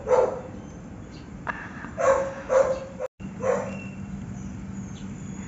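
A dog barking in short single barks, one at the start and three more about two to three and a half seconds in.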